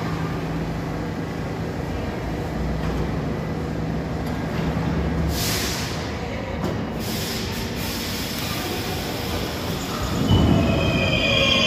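R32 subway train rolling slowly into a station, with a steady traction-motor hum and a short hiss about halfway through. Near the end it gets louder as the cars pass, and the wheels begin to squeal high and thin.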